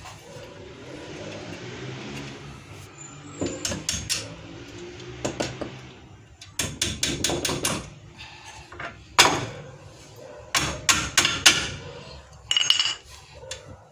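Metal brake parts clinking and knocking as the pads and retaining springs of a front disc brake caliper are worked into place by hand: scattered sharp clicks in clusters, the loudest about nine seconds in, with a brief metallic ring near the end.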